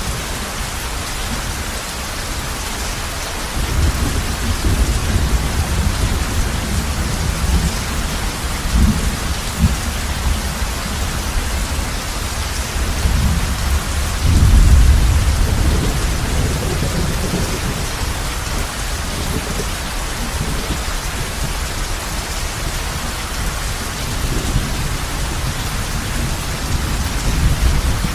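Heavy rain falling steadily on a roof, an even hiss, with thunder rumbling low several times; the loudest roll comes about halfway through.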